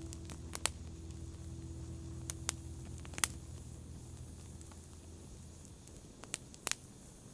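A held musical tone fading out over the first few seconds above a faint low rumble, with a scattering of short sharp clicks.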